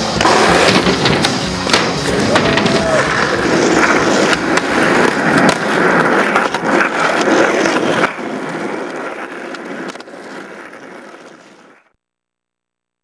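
Skateboard sounds from a camcorder's own microphone: wheels rolling on concrete, with repeated sharp clacks and knocks of the board hitting the ground. The sound fades away to silence about three-quarters of the way through.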